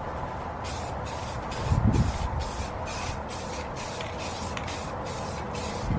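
Clear coat being sprayed onto an aluminum wheel in a heavy final coat: a hissing spray that starts about half a second in and stops and starts in short passes several times a second.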